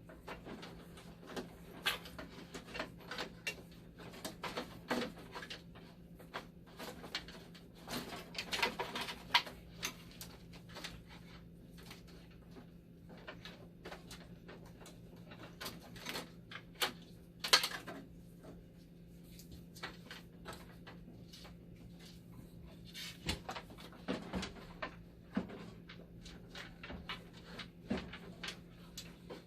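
Scattered clicks, taps and light rattles of wires and metal parts being handled inside an opened dialysis machine while its power supply is being removed, over a steady low hum.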